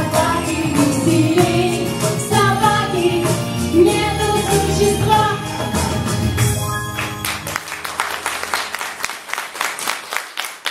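A woman and a group of young girls singing a song with music accompaniment; about seven and a half seconds in the song ends and the audience breaks into applause.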